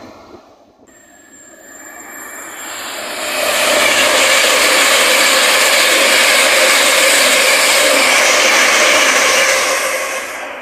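Electric multiple-unit passenger train running past close alongside the platform: wheel and rail noise builds over the first few seconds, holds loud and steady, then falls away near the end.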